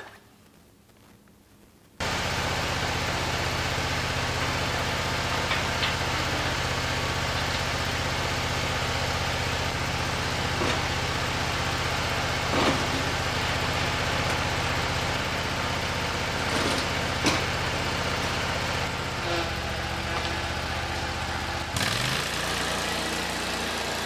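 Scag zero-turn mower engine idling steadily after a quiet first two seconds, with a few short knocks as car batteries are set onto the aerator's steel tray. The engine note shifts once, with a brief rise, near the end.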